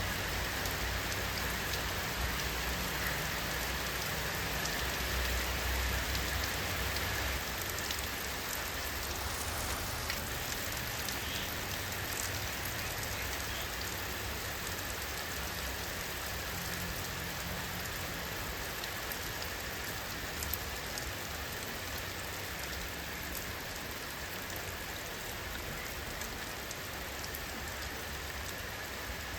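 Steady rain falling, an even hiss with scattered drop ticks, and a faint low rumble underneath for the first several seconds.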